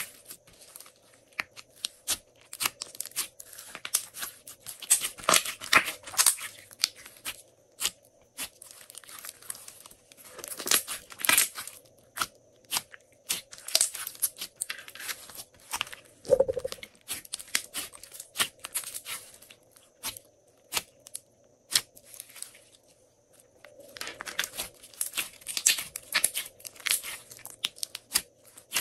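Glossy slime being stretched, folded and pressed by hand, giving bursts of sticky crackles and small pops as air pockets break and the slime pulls apart, with one deeper, louder pop about sixteen seconds in.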